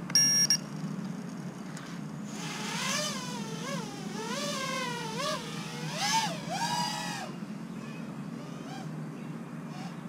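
Racing quadcopter's brushless motors and propellers whining, the pitch swooping up and down again and again with the throttle as it flies, fading after about seven seconds. A brief beep comes at the very start.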